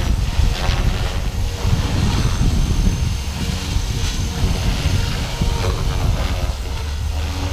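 Blade 330S electric RC helicopter in flight: its brushless motor and rotors give a steady high whine, over a heavy, uneven low rumble.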